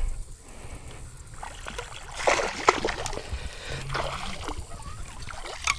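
Water splashing in several short bursts as a hooked bass is reeled up to the side of a small boat, the loudest splash a little over two seconds in.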